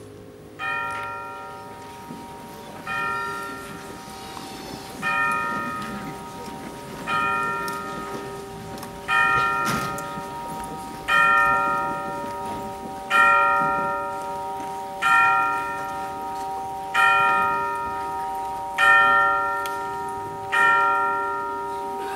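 A bell struck once about every two seconds, eleven strikes in all. Each strike rings on and fades over a steady held note. The strikes grow louder through the first half and stay strong to the end.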